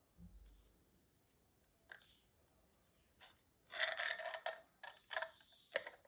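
A cracked phone display being pried off the frame: a soft thump, a couple of single clicks, then a close run of crackling clicks and scratches, with a few more near the end.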